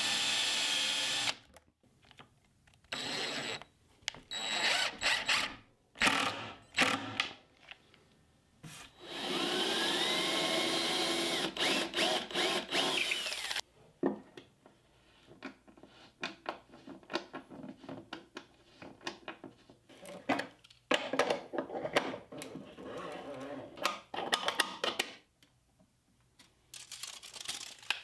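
A power drill runs in several bursts, driving a countersink bit into plywood, with its pitch rising as it speeds up; the longest run lasts about four seconds. After that come irregular clicks and knocks as metal fittings and plywood parts are handled.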